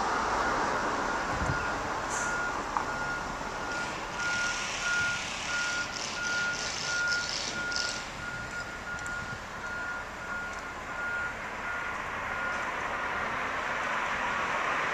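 Reversing alarm of a construction vehicle: a single-pitched beep repeating steadily, a bit faster than once a second, which stops a couple of seconds before the end, over a steady background hiss.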